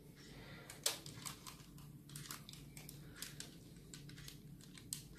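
Thick chocolate cake batter being poured from a bowl into a parchment-lined baking tray: faint, irregular light clicks and crinkles, the sharpest about a second in, over a low steady hum.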